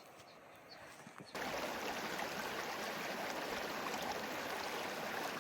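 A mountain stream of running water, rushing steadily. It cuts in suddenly about a second in, after a quiet start with a few faint, high chirps.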